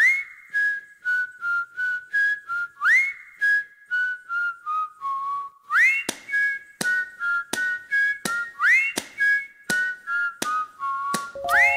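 Background music: a whistled melody over a steady clicking beat, each phrase opening with an upward slide. Lower instrument notes come in near the end.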